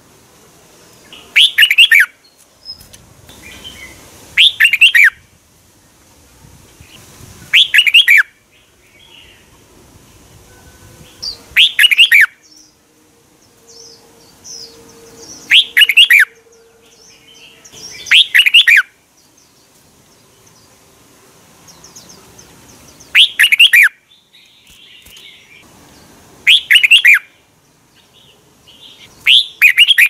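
Red-whiskered bulbul singing: nine short, loud song phrases, most about three to four seconds apart with one longer pause midway, and fainter chirps in between.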